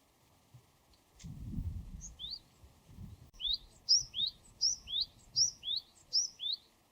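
Japanese tit singing: a clear two-note phrase, a high note followed by a lower rising one, repeated about six times in quick succession. A low rumble comes just before the song begins.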